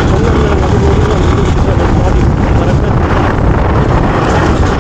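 Hero Xpulse 200's single-cylinder engine running while riding over a rough dirt track, largely buried under heavy wind noise on the microphone.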